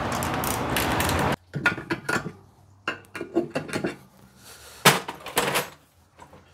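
A steady noise that cuts off suddenly about a second in, then scattered clinks and knocks of the disassembled VW air-cooled engine's case halves and studs being handled on a wooden workbench.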